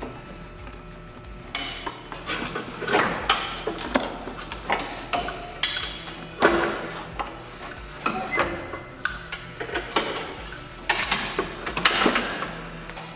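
Irregular clanks, knocks and clatters of metal parts and hand tools being handled while working on a car, starting about a second and a half in.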